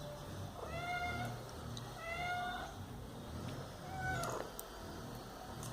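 Domestic cat meowing three times, about a second and a half apart. Each meow is short and rises then falls in pitch, and the last one is briefer.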